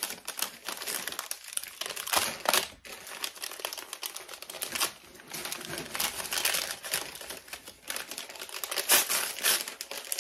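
Small kraft-paper gift bag being crinkled and torn open by hand: an irregular crackling rustle, with louder bursts about two seconds in and near the end. The package is hard to open.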